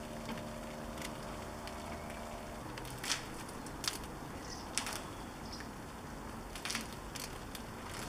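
Hands-on car-detailing work: a few irregular sharp clicks and crackles over a steady low hiss, with a low hum that fades out about a third of the way in.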